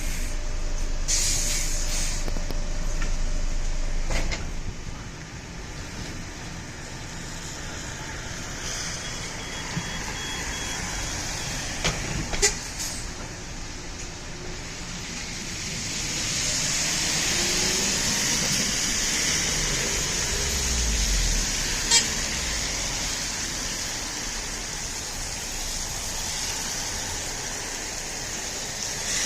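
Road traffic: a steady wash of tyre and engine noise as vehicles pass, with a heavy vehicle such as a truck or bus swelling up and past about two-thirds of the way through. There are a couple of sharp clicks.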